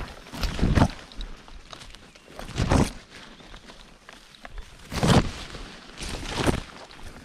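Footsteps on a woodland trail: four or five separate crunches, unevenly spaced one to two and a half seconds apart.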